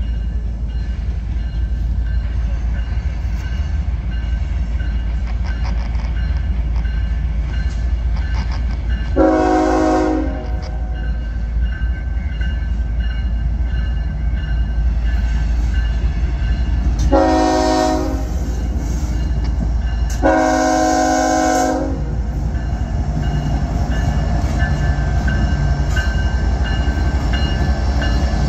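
CSX freight locomotive air horn sounding three blasts as the train approaches a grade crossing, the last blast the longest, over steady low rumble and the ringing of the crossing-signal bell. Near the end the lead diesel locomotives pass close by with their engines running.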